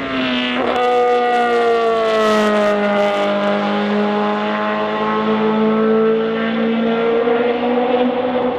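1988 ADA Group C race car's V8 engine slowing for a corner, with a quick burst of revs about half a second in. It then runs steadily through the bend, its note sinking a little and then climbing slowly as it pulls away.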